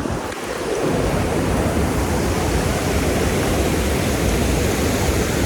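Rushing water from a waterfall: a steady, dense, even noise.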